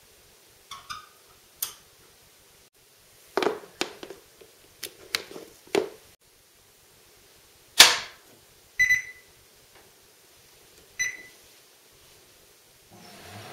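A string of clicks and knocks, the loudest one sharp click, then a treadmill console beeping twice with short high beeps about two seconds apart. Near the end the treadmill's motor starts up with a low steady hum.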